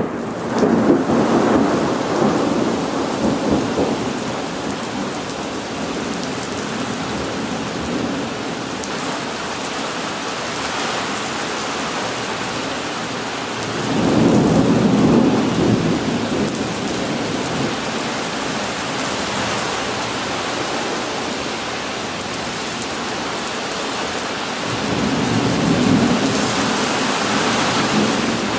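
Steady heavy rain with rolling thunder: a roll of thunder at the start, another about halfway through, and a third near the end.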